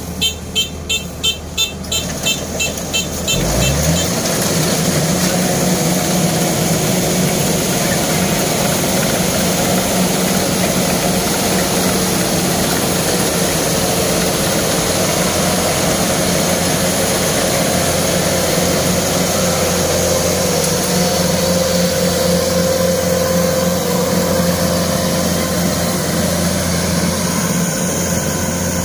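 Rice combine harvester's diesel engine. For the first three seconds there is a regular run of quick pulses; then the engine revs up, rising in pitch, and runs steadily under load as the machine drives into the paddy and cuts rice.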